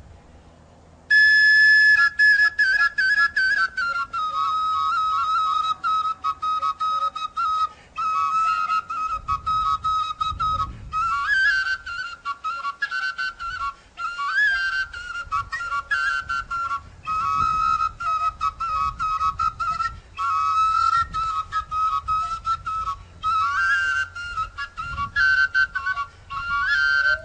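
A high, whistle-toned instrument plays a single lively melody line in quick, separated notes with small upward flourishes, starting about a second in.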